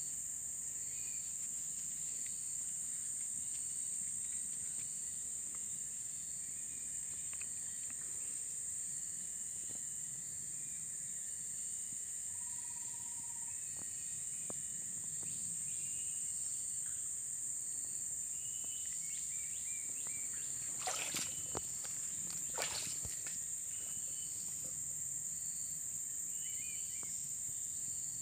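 A steady high-pitched insect chorus of forest crickets or cicadas drones throughout, with short chirping bird calls repeating over it about once a second. Two brief knocks come a little past two-thirds of the way through.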